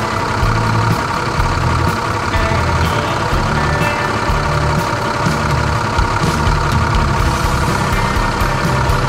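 Sound effect of a large farm tractor's engine running steadily as it pulls a plough.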